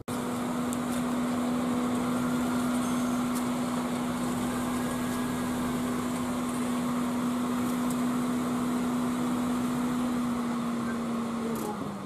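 Steady whirring hum from a parked Lada Vesta with its headlight on. Near the end the hum drops in pitch and fades as it winds down.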